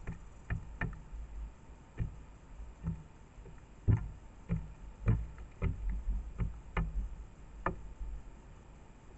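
Carrion crows pecking seeds at a bird feeder: about a dozen irregular sharp taps of beak on the feeder, the loudest about four seconds in.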